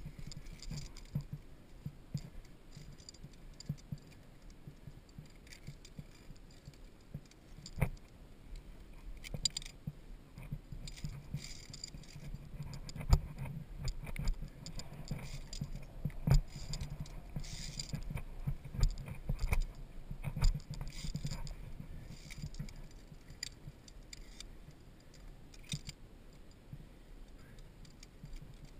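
Metal via ferrata lanyard carabiners clinking and jangling against each other and the steel safety cable in scattered clicks and knocks as the climber moves, over a steady low rumble.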